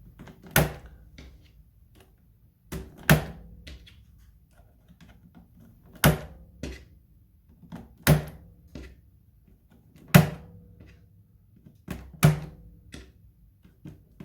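Keycaps being pressed back onto a mechanical keyboard's switches: a sharp plastic clack about every two seconds, six in all, with lighter clicks between.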